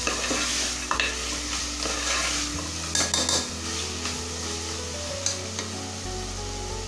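Mutton curry sizzling in a pressure cooker as it is stirred and sautéed with a wooden spoon. The spoon knocks against the pot about a second in and again around three seconds in.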